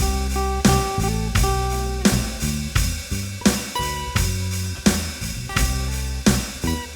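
Acoustic band playing an instrumental passage: guitar strummed in a steady rhythm over bass guitar, with a few held higher notes of a lead line above.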